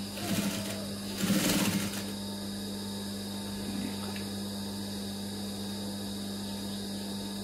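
Industrial sewing machine stitching in two short runs in the first two seconds, then stopping, leaving a steady electrical hum.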